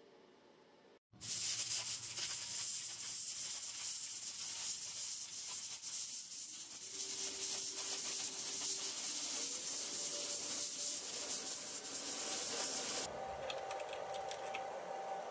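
Steady hiss of the 60 psi compressed-air assist jet from a 700 W fiber laser cutting torch as it burns slowly through 6 mm steel plate, starting about a second in. About two seconds before the end the hiss stops, leaving a quieter steady hum with a faint tone and a few clicks.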